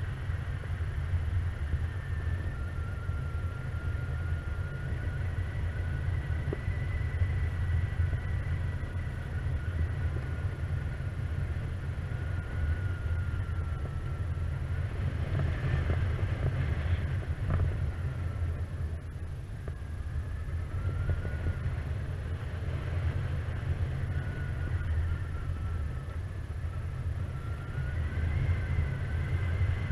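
Wind rushing over the microphone of a paraglider in flight: a steady low rumble, with a faint high whistle that wavers slowly up and down in pitch.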